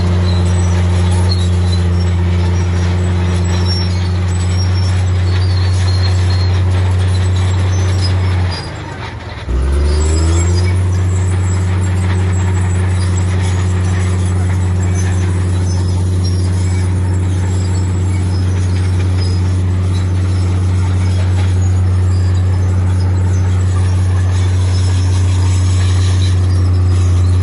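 Heavy diesel earthmoving machinery running steadily with a deep hum. About eight and a half seconds in it drops off for a second, then comes back with a rising pitch.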